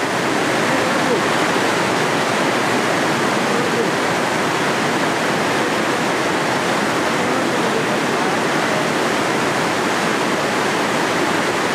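Big-volume whitewater rapid rushing loudly and steadily: a dense, unbroken noise of churning, crashing water.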